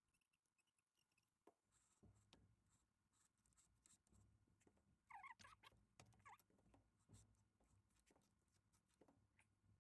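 Near silence: faint scattered clicks and handling noises, with a brief faint squeak about five seconds in.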